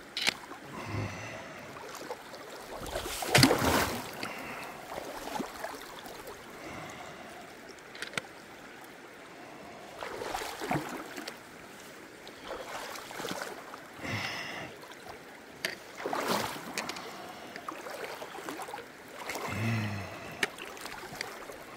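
A person wading through a shallow, rocky river in sandals: water rushes steadily around the legs, with irregular sloshing splashes as the feet move through the current. The largest splash comes a few seconds in, with others about halfway and near the end.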